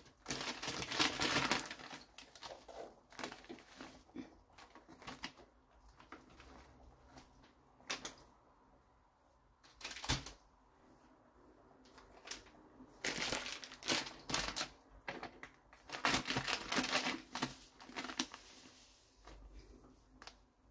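Dry polenta meal poured into a plastic container on a kitchen scale, making short bursts of rustling hiss, with a couple of single knocks between the pours.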